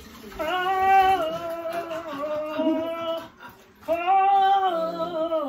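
A woman singing long held notes with a slight waver, in two phrases with a short break about three and a half seconds in.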